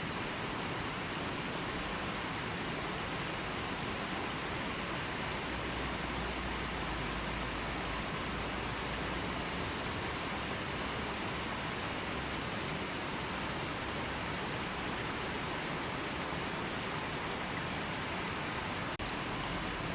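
Continuous steady water sound, a dense even rush with no separate drops or splashes standing out, dipping for an instant about nineteen seconds in.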